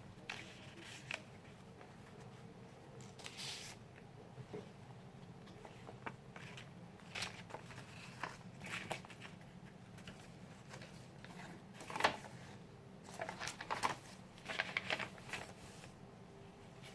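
Pages of handmade junk journals being turned and handled: scattered short paper rustles and soft taps, with a sharper one about twelve seconds in and a busier cluster of rustles near the end.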